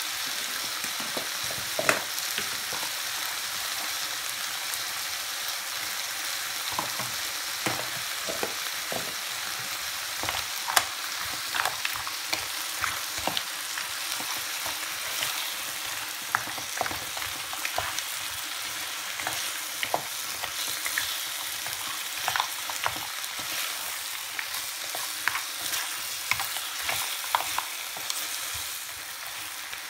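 Mussels in their shells and vegetables sizzling in a frying pan with a steady hiss, while a wooden spatula stirs them, giving many irregular clicks and knocks against the shells and pan. The hiss drops a little near the end.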